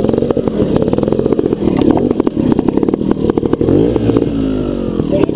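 Trials motorcycle engine running at low revs, with the revs changing about four seconds in.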